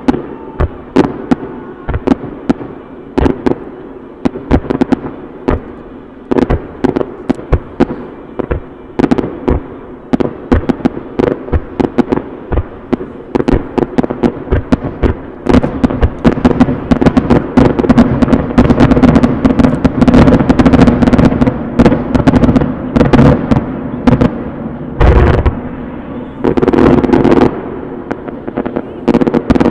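Aerial fireworks bursting, several bangs a second. About halfway through they thicken into a loud, almost unbroken barrage, with a couple of brief let-ups near the end.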